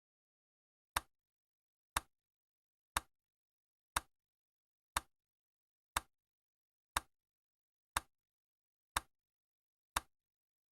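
Countdown timer tick sound effect: ten short, sharp clock-like ticks, one each second, with silence between them.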